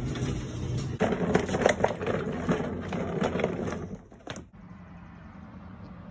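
Plastic clattering and knocking as a wet/dry shop vacuum and its corrugated hose are handled, a run of sharp knocks from about one to four seconds in. After that it drops to a quieter steady background.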